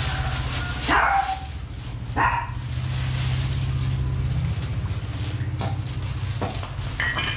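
Plastic bag rustling as a new motorcycle cylinder is unwrapped, over a steady low hum. Two short, loud pitched sounds come about a second apart near the start, and a fainter one near the end.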